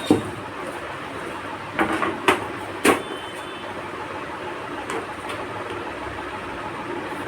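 A few sharp knocks and clicks of parts being handled during PC assembly, four of them in the first three seconds, over a steady background noise.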